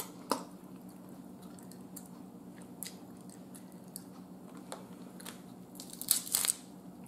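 Eating sounds: soft chewing and scattered mouth clicks, then a brief burst of sharp cracking about six seconds in as a cooked snow crab leg's shell is snapped and pulled apart by hand.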